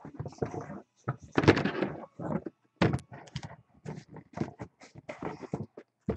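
Cardboard case being handled and shifted on a desk: a run of irregular knocks, thuds and scrapes, the loudest about a second and a half in.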